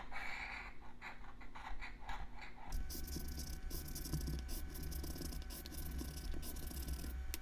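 Scratch-off lottery ticket being scratched with a scratching tool: quick repeated scrapes across the ticket's coating. A low steady hum comes in about three seconds in.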